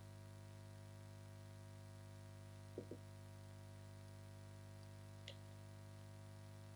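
Near silence: a steady low hum, with two quick soft knocks close together near the middle and a single faint click a couple of seconds later.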